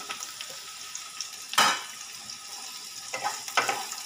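Diced ridge gourd frying in hot mustard oil in a kadai, with a steady sizzle, while a wooden spatula stirs it: one loud scrape about a second and a half in and two lighter ones near the end.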